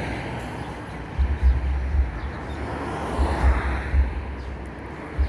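Wind buffeting the microphone in gusts, with deep thumps about a second in, again between three and four seconds, and near the end, over a steady outdoor rush that swells and fades.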